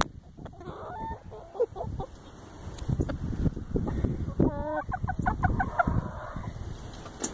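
Hens clucking close by: a few short calls about a second in, then a longer wavering call about four and a half seconds in, followed by a quick run of short clucks.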